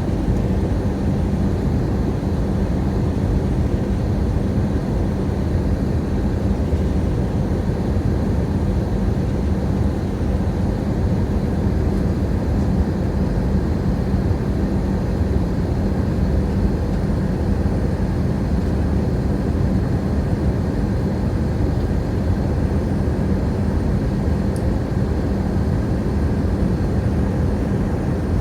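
Steady drone of an airliner cabin in flight: engine and airflow noise with a constant low hum, unchanging throughout.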